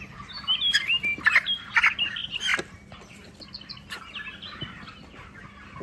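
Many short bird chirps and gliding calls, busiest in the first half and sparser toward the end, with a few sharp knocks in between.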